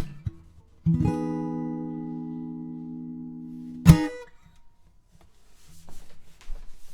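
Taylor 324e mahogany-top acoustic guitar: a chord strummed about a second in and left to ring, fading slowly, then stopped a little before four seconds by one sharp, loud percussive strum that mutes the strings. Afterwards only faint scattered handling noise.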